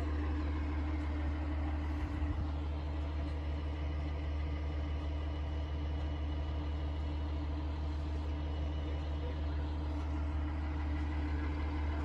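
Steady low mechanical hum with a faint steady tone above it; the fire alarm is not sounding.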